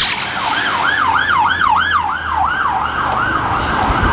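Emergency vehicle siren sounding a fast yelp, its pitch sweeping up and down several times a second. It grows fainter in the second half.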